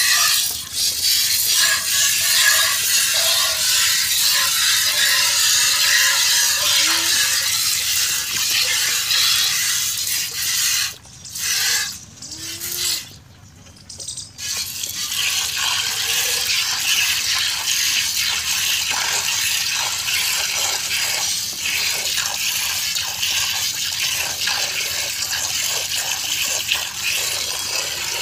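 Water buffalo being milked by hand: thin streams of milk squirting from the teats into a metal pail, making a steady hissing spray that drops out briefly a little before halfway.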